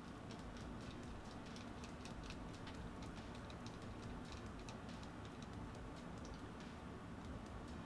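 Faint, irregular small clicks from a screwdriver turning the small screw into a metal XLR connector housing, several a second, over a steady low hum.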